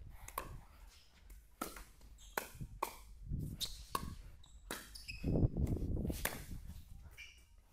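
Pickleball rally: paddles striking a plastic pickleball in a quick, irregular exchange, a sharp pop about every half second to a second, with a few short squeaks in between.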